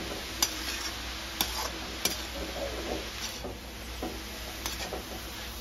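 Perforated metal spatula stirring and scraping grated cauliflower frying in a metal kadhai, over a steady low sizzle. A few sharp clinks ring out as the spatula strikes the pan, about four in all.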